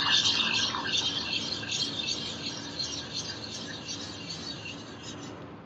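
Egg yolk mixture being poured gradually from a steel bowl into hot milk in a pan: a steady rasping hiss that fades away over a few seconds.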